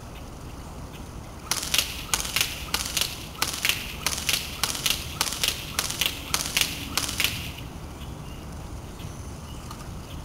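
Classic Army MP5A2 airsoft electric gun firing a rapid string of single shots, sharp clicks about three a second that start about a second and a half in and stop after about six seconds. Wind rumbles on the microphone underneath.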